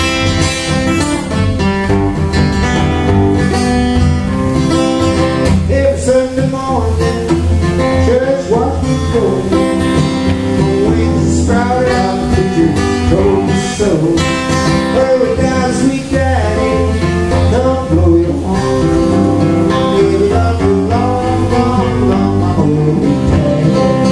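Live acoustic guitar strummed with electric keyboard accompaniment, playing an instrumental passage of a blues-rock song.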